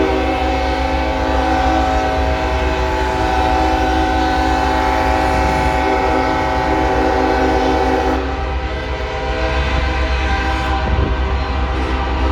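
Locomotive air horns blowing together in a long, loud held chord over a steady low rumble; about eight seconds in, some of the tones drop out, the sound dips briefly, then the horns carry on.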